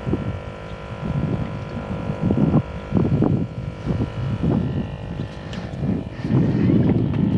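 Wind gusting across the microphone in irregular low rumbles over a steady mechanical hum.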